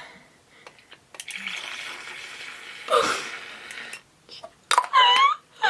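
Soapy water swishing and churning in the tub of a small battery-powered mini washing machine for about three seconds, with a short vocal exclamation in the middle and another near the end.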